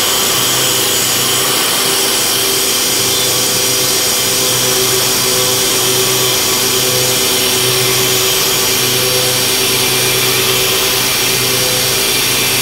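1995 Haas VF-3 CNC vertical mill cutting a metal block with an end mill, a steady machining drone with a few held tones that come and go as the cut loads the spindle. Under it runs a constant hiss from the mist-lube spray nozzle aimed at the cutter.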